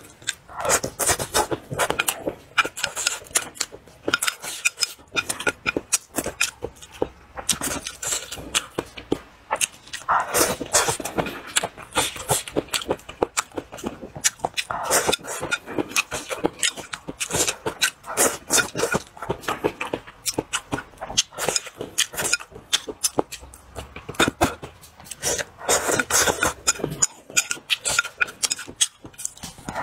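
Close-miked eating: steady, loud chewing and lip-smacking of mouthfuls of rice and stir-fried green peppers, with chopsticks now and then scraping and clicking against the bowl.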